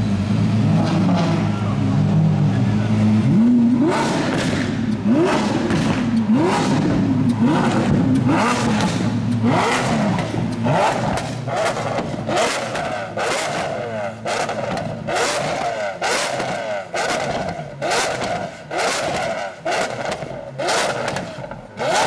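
Lamborghini Aventador SVJ's V12 on an aftermarket exhaust, held at a steady rev for a few seconds, then blipped again and again in quick rev bursts about once a second. Each blip is followed by sharp exhaust pops and crackles: overrun backfires, the exhaust spitting flames. The blips fall off a little in loudness near the end.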